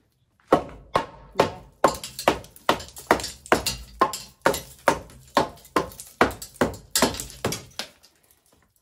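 Hammer blows on a wooden roof beam, a steady series of about eighteen sharp strikes at a little over two a second, stopping shortly before the end.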